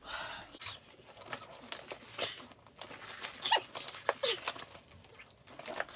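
Rustling and crinkling of things being handled, with scattered light clicks and two short falling squeaks near the middle.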